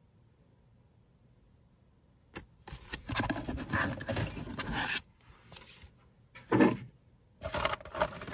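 A hand rummaging through a wooden box of costume jewelry: metal pieces shifting, clinking and scraping against each other and the box. It starts about two seconds in, with the longest stretch first, then a few shorter bursts.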